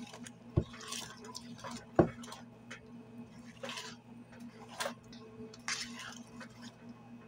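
Wire whisk beating thick puto batter by hand in a stainless steel bowl: irregular scrapes and clicks of the wires against the metal, with a sharp knock about half a second in and a louder one about two seconds in.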